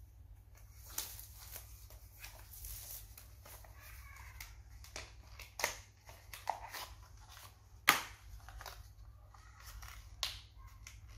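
Computer parts being handled by hand during a drive swap: scattered clicks and knocks, one sharp click about eight seconds in, with some rustling.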